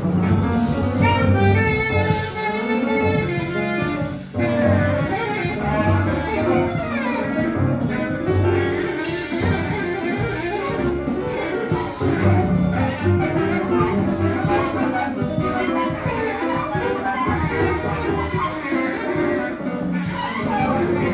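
Live jazz from a quartet of piano, bass clarinet, double bass and drums, played densely and without a break, with the bass's low notes prominent.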